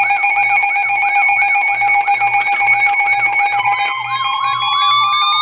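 Weather alert radio alarms going off for an incoming warning: steady alert tones under a repeating warble about twice a second, with a slowly rising tone joining a little past halfway.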